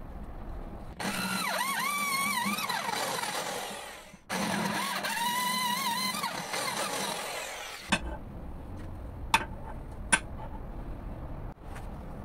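Electric drill boring a hole through a steel block held in a vise: two stretches of a whining tone that wavers in pitch as the bit cuts, with a short stop between them. A few sharp clicks follow near the end.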